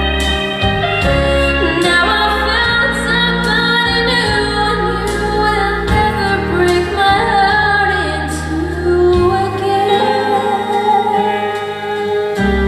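Female vocalist singing a country ballad live over a backing band, with the voice gliding through drawn-out notes.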